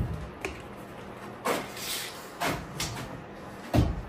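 Loose wooden boards knocking and clattering as they are handled and set down: a few short knocks, the loudest near the end.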